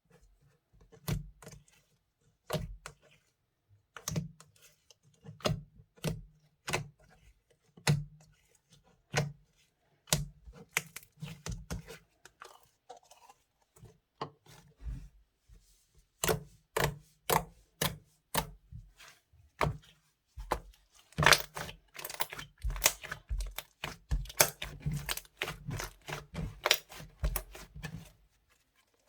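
Hands squeezing and stretching a borax-free glitter slime made with glue and soft clay, giving irregular sharp clicks and pops. The clicks come thicker and faster in the second half.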